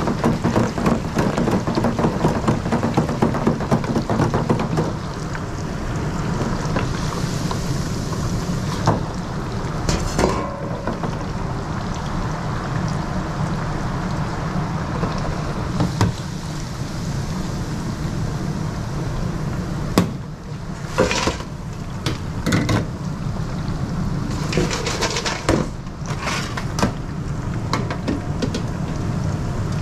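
Chips deep-frying in a commercial twin-basket fryer: a steady crackling sizzle of hot oil, densest in the first few seconds, with a few sharp metal clanks from the fryer baskets and steel trays.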